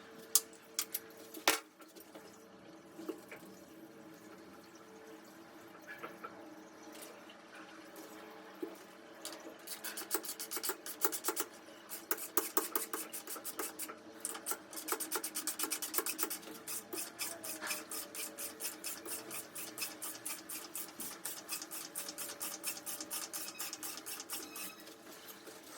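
Hand work on the metal parts of a Grohe Rapid SL installation frame: a few sharp knocks near the start, then from about ten seconds in a long run of rapid, even metallic clicks, about five a second.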